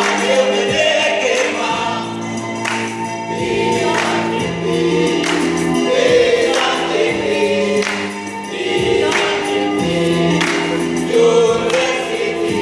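A group of voices singing with a lead singer on a microphone, over backing music with held notes and a steady beat about every second and a quarter.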